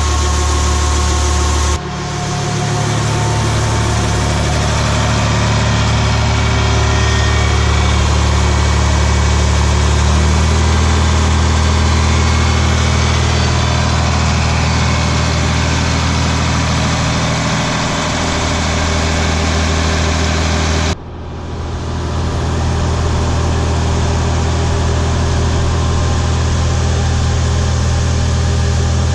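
John Deere 4020 tractor engine running steadily while it powers a grain auger. The engine note steps up about a third of the way through, and the sound changes abruptly twice.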